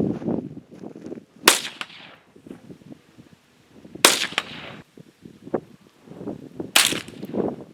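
Three rimfire rifle shots, about two and a half seconds apart, each trailing off in a short echo.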